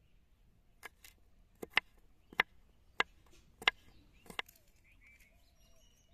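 Kitchen knife chopping ginger on a wooden board: about nine sharp knocks of the blade on the wood at an uneven pace, stopping about four and a half seconds in.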